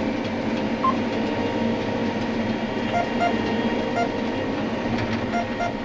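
John Deere W235 windrower driving across a field, heard from inside the cab: a steady engine and drive rumble with a faint, constant whine.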